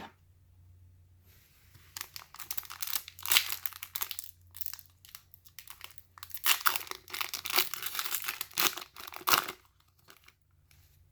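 Plastic trading-card pack wrapper being torn open and crinkled, in two spells of crackling a few seconds apart.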